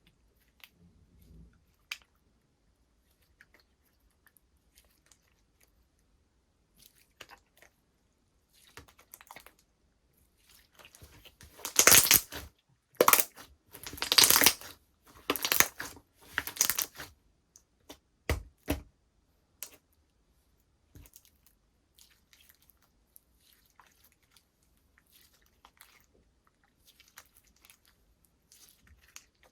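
Slime being played with by hand: scattered small clicks and pops, with a run of much louder noisy bursts around the middle and two sharp pops shortly after.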